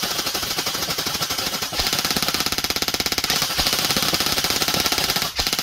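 Airsoft electric rifle (AEG) firing long full-auto strings: a fast, even mechanical rattle of shots with only a momentary break about five seconds in.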